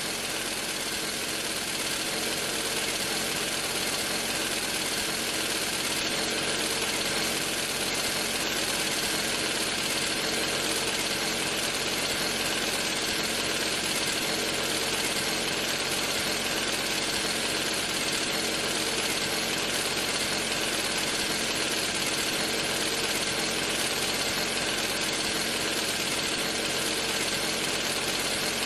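A drill running continuously at a steady speed, its motor giving an even whirring whine that holds the same pitch and loudness throughout.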